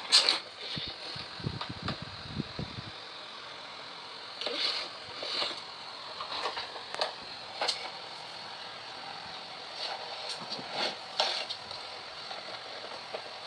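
Handling noise from a network cable and a plastic cable tester: scattered light clicks and knocks over a faint steady hiss, with a low rumble of bumping between about one and three seconds in.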